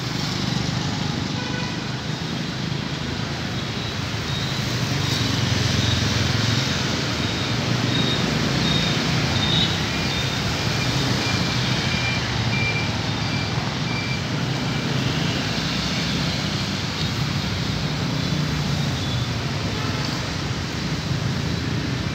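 Street traffic with motorbikes passing, a steady low engine rumble under a general hiss. Through the middle there are faint, short repeated high electronic beeps, first at one pitch and then at a lower one.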